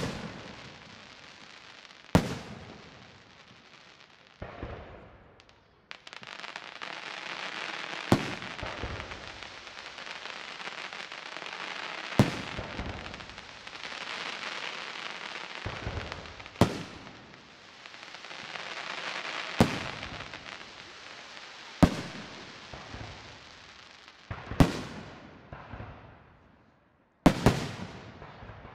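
Fireworks display: aerial shells bursting in sharp bangs, about ten of them two to four seconds apart, with a continuous hiss between the bangs through the middle of the stretch.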